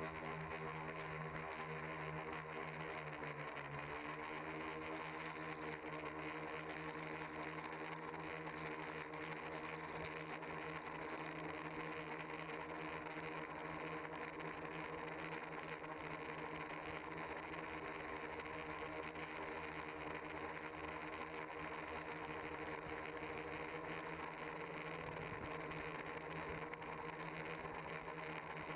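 Multicopter's electric motors and propellers humming steadily in flight, close to the onboard camera. The pitch dips briefly and comes back about three seconds in.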